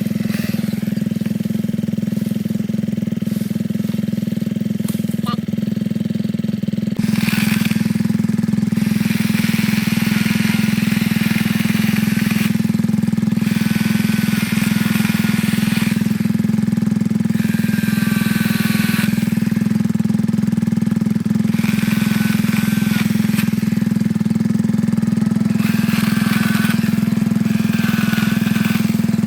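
Ryobi 18-volt cordless chainsaw running with a steady motor hum, its chain cutting into wood in repeated stretches from about seven seconds in, where the sound gets louder.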